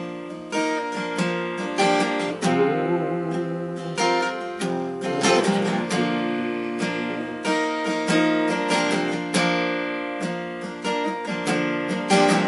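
Acoustic guitar strumming chords in a slow, steady rhythm, each strum ringing on into the next.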